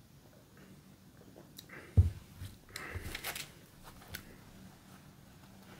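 A person taking a first sip of beer: soft mouth, sipping and swallowing sounds with a few small clicks, and a dull knock about two seconds in that is the loudest sound.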